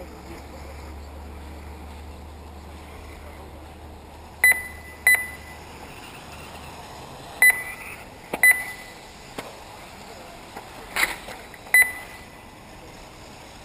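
Race lap-counting system beeping as the RC buggies cross the timing line: about six short, loud electronic beeps at uneven intervals, the first about four and a half seconds in, over a steady outdoor background.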